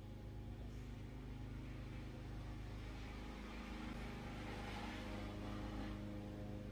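Steady low hum of a kitchen appliance running, with a soft hiss that swells and fades in the middle.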